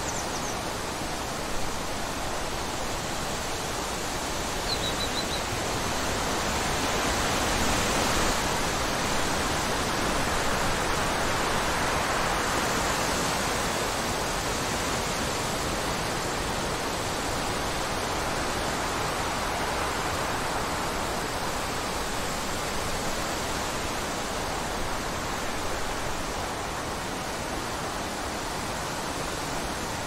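Wind blowing through trees, shrubs and tall grass: a steady rushing that swells into a gust a few seconds in and eases off again. A bird gives a brief few-note chirp about five seconds in.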